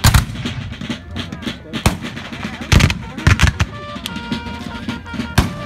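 Scattered black-powder small-arms fire from Civil War reenactors, about six sharp irregular shots. The loudest come right at the start and near three seconds in. A crowd of spectators murmurs underneath.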